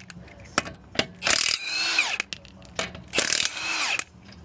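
Power impact wrench run in two short bursts, each winding down in pitch as it stops, with clicks and clatter of tools in between: it is loosening nuts to take off a wheel.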